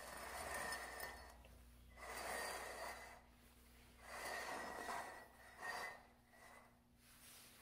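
Two upturned mugs being slid and shuffled across a wood-look floor by hand, scraping in several strokes of about a second each with short pauses between.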